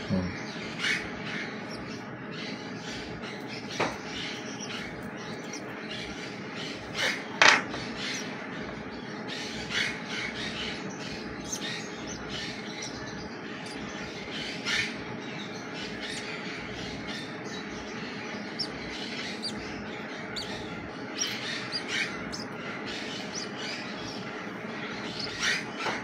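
Short parrot cheeps and squawks, about a dozen, scattered unevenly, the loudest about seven and a half seconds in, over a steady low hum.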